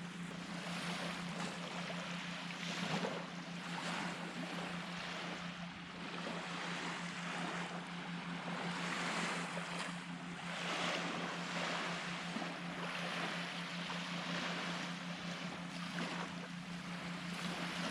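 Small waves washing on a beach, the rush swelling and fading every few seconds, with wind on the microphone. A steady low hum runs underneath.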